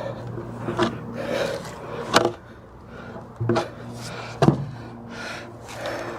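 Hand work at a fence post hole: four sharp knocks among scraping and rustling, with a steady low hum underneath.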